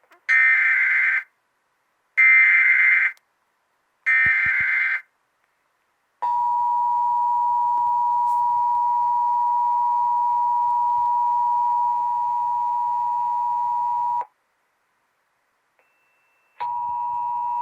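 Emergency Alert System broadcast test tones: three one-second bursts of SAME header data, a shrill warbling digital screech, each followed by a short gap. Then comes the steady two-tone EAS attention signal, held for about eight seconds. After about two seconds of quiet the attention tone starts again near the end.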